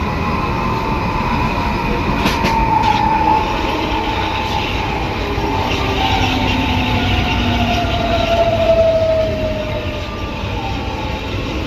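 Metro train's traction motor and inverter whine heard on board, with the reduction gearbox growling beneath it; the uploader puts the growl down to a probable lack of lubrication in the gearbox. The whine falls steadily in pitch as the train slows, with a few brief clicks near the start.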